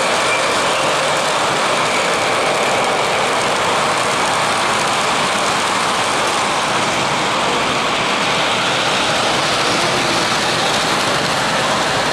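O gauge model trains rolling along the layout's track: a steady whirring rumble of wheels and motors that does not change.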